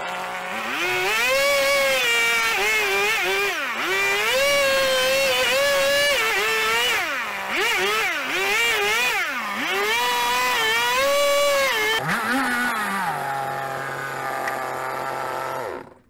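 Stihl two-stroke chainsaw run at full throttle, its pitch dipping and recovering again and again as the chain bites into a log, then dropping to a steady idle about three-quarters of the way through and cutting off near the end.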